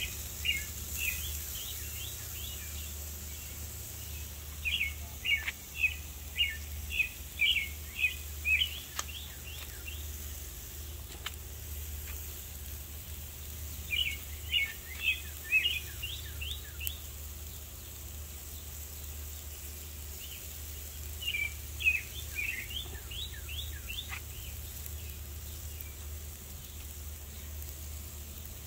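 A songbird chirping in several bouts of quick repeated notes, each bout lasting a few seconds, over a steady low hum.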